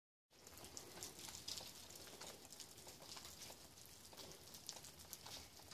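Faint crunching and crackling of footsteps in snow, a scatter of small irregular ticks.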